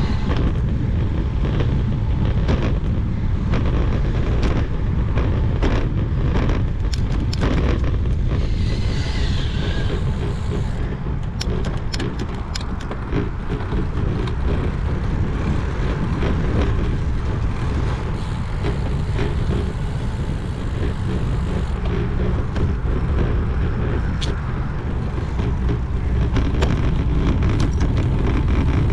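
Wind rumbling over the camera microphone and tyre noise as a road bike rolls over pavement, with scattered knocks and clicks from bumps in the surface.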